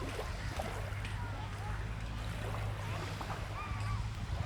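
Steady low rumble of wind on the microphone over sea surf at the shore, with faint distant voices.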